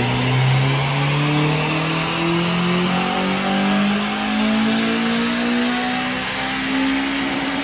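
Honda Civic Type R FN2's K20 2.0-litre four-cylinder engine on a full-throttle power run on a rolling-road dyno, breathing through a Piper exhaust manifold, sports cat and M2 cat-back exhaust. The revs climb slowly and evenly through the gear and peak near the end.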